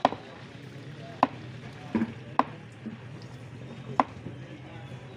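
Heavy cleaver chopping through fish on a thick wooden chopping block: about six sharp chops at uneven intervals, over a steady low hum.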